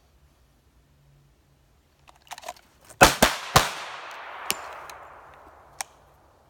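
Glock 21 .45 ACP pistol firing three quick shots about three seconds in, each a sharp crack, followed by a long fading echo. Some light clatter comes just before the shots, and two smaller sharp cracks come later.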